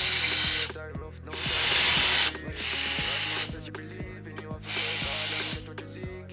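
Cordless electric ratchet spinning out the main cap bolts of a GM 3.6 V6 engine block in three runs of about a second each, the middle one loudest. Background music with a steady beat plays underneath.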